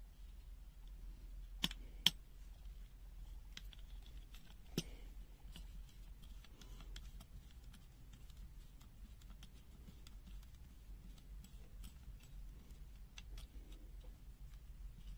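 Light clicks and taps of a pointer and fingers on an opened plastic multimeter's circuit board and case, with two sharper clicks close together about two seconds in and another near five seconds, over a faint steady low hum.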